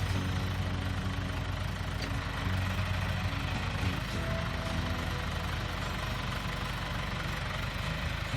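Diesel engine of a John Deere 410 backhoe idling steadily with an even low pulsing.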